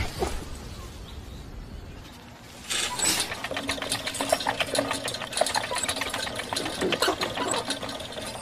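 A hamster exercise wheel spinning fast: a rapid mechanical rattling with a faint steady hum, which starts about three seconds in after a quieter stretch.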